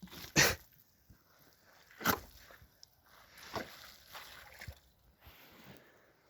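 Boots squelching and sloshing through saturated mud and standing water, a few separate steps about a second or more apart.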